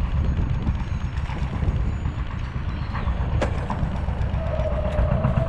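A sailboat's inboard engine runs steadily with a low rumble while under way. A steady high tone joins it near the end, drifting slightly lower.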